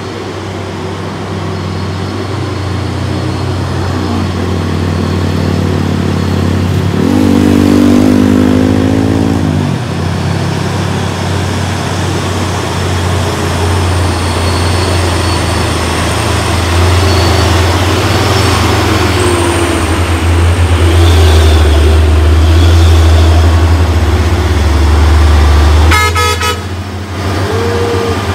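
Heavy truck's diesel engine labouring up a steep climb under load. It revs up and down about eight seconds in, runs hard and loud through the middle, then drops off sharply after about 26 seconds with a short rattling burst.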